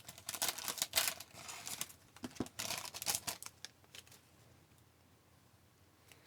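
A hockey card pack wrapper being torn open and crinkled, in a quick run of crackles for about three and a half seconds, then near quiet with one faint tick near the end.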